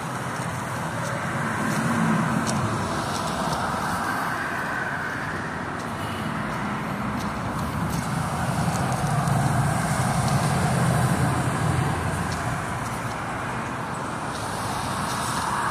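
Diesel locomotives of a stopped freight train idling, led by a GE AC44C6M: a steady low engine rumble. Road traffic swells in and out over it a couple of times.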